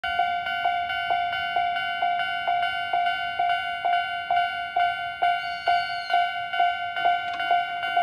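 Japanese railway level-crossing alarm: an electronic bell dinging steadily at a little over two strikes a second, the warning that a train is approaching.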